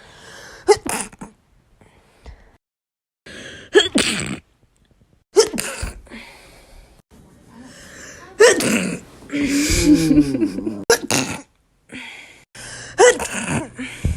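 A run of about six human sneezes, one after another, each a sharp burst cut abruptly from the next.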